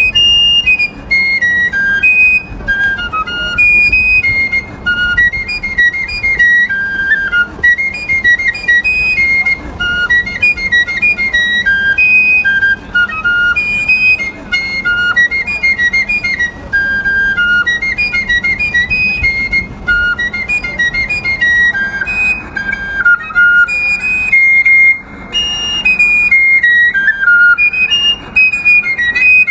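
A fife played solo: a quick melody of short, high notes moving up and down, of the Revolutionary War fife-tune kind, with one brief pause for breath a little before the end.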